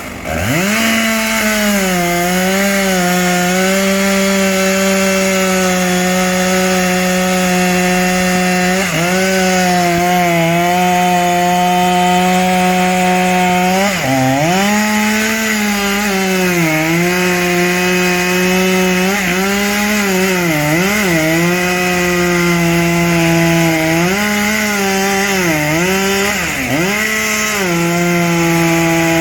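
Chainsaw running at high revs while cutting wood, its engine pitch dipping briefly and recovering again and again as the chain bogs under load.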